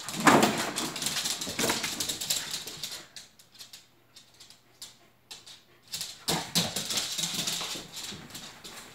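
Plastic ball-pit balls clattering and a plastic kiddie pool rustling as an Icelandic Sheepdog puppy scrambles through them, with many quick clicks. It goes quiet about three seconds in, and the clicking and rustling picks up again about two-thirds of the way through.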